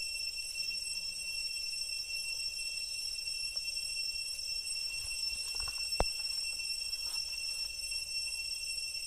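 Steady high-pitched insect drone, several even tones held without a break, with one sharp knock about six seconds in.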